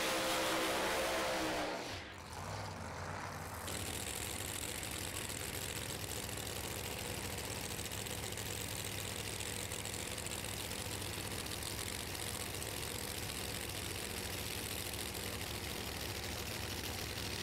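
Engine idling, a steady low running sound. A higher steady engine note fades out about two seconds in.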